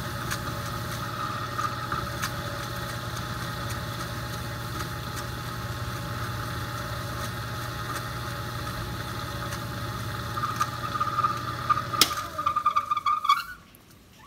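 Small benchtop metal lathe running steadily, its motor humming with a steady whine. About twelve seconds in it clicks off and winds down to a stop over a second and a half.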